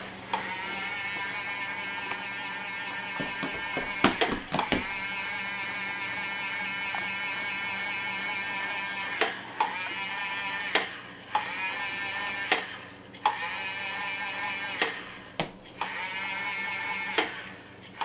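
Battery-powered bubble-blowing toy running: a steady tinny electronic whine or tune, broken by short gaps and several sharp clicks.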